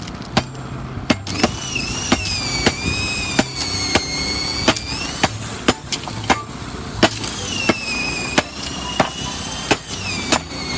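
A series of sharp knocks or cracks, one or two a second at uneven spacing, with a high wavering whistle-like tone that comes in about a second and a half in, fades after about five seconds, and returns later.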